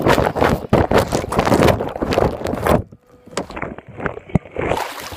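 Swimming-pool water splashing and sloshing right at the microphone, loud for the first three seconds. About three and a half seconds in, the sound turns muffled and dull as the microphone goes under the water.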